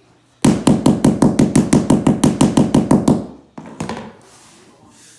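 Rapid, even knocking on a freshly glued luxury vinyl floor plank, about six strikes a second for nearly three seconds, then a few softer knocks. It is the plank being tapped down to seat it while the glue sets.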